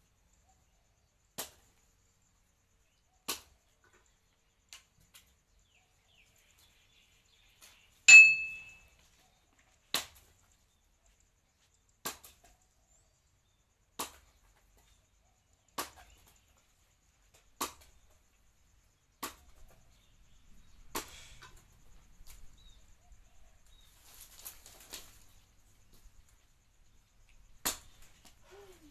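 Sharp single knocks of metal being struck, coming evenly about every two seconds. One knock about eight seconds in is much louder and rings on briefly. Faint rustling follows in the last part.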